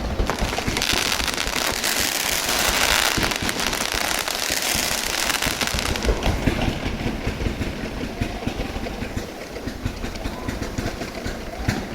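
Fireworks display going off in a continuous barrage: rapid, overlapping pops and bangs with stretches of hissing crackle.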